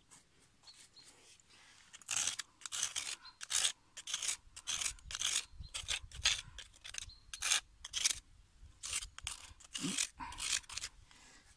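Metal spoon scraping grit and gravel out of a crack in bedrock, in quick, irregular strokes starting about two seconds in. This is crevicing: cleaning out sediment that may hold trapped gold.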